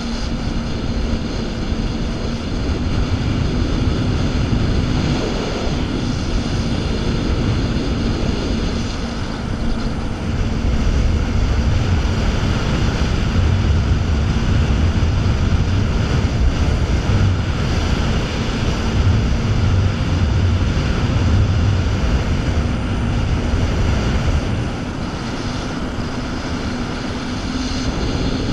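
Jet ski running at speed: a steady engine drone over the rushing water of its wake, louder for a stretch in the middle.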